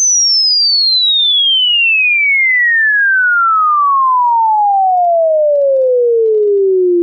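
A single pure electronic sine tone sweeping steadily downward in pitch, from a high whistle to a low hum, at an even loudness.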